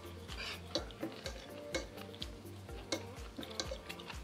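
Cutlery clicking and clinking against a plate during eating, over background music with a steady ticking beat of about three pulses a second.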